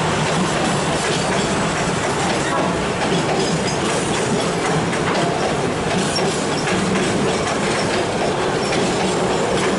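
Freight train wagons rolling past on the track, a steady rumble and clatter of steel wheels on the rails.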